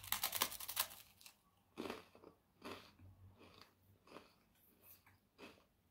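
A bite into a crisp chocolate-and-cream wafer bar: a quick run of crackling crunches in the first second. Then slower chewing crunches about once a second.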